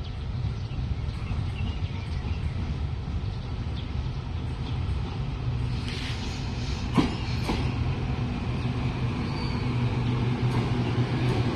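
Taiwan Railways EMU900 electric multiple unit pulling into a station. Its rumble grows as it nears, with a couple of sharp clicks about seven seconds in, then a steady low electric hum as it slows along the platform.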